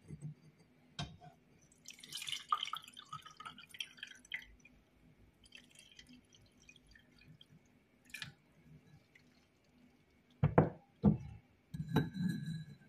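Herbal infusion poured from a pot through a fine stainless-steel mesh strainer into a ceramic cup, trickling and dripping. Near the end come two short knocks and a ringing metallic clink.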